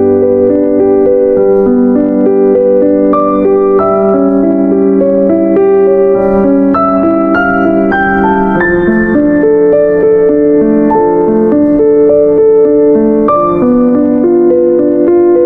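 Soft background piano music, a slow melody over held bass notes.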